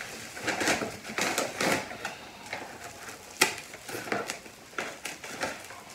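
Packaging rustling and crinkling as a potted plant is unwrapped and handled, with irregular clicks and taps and one sharper click about three and a half seconds in.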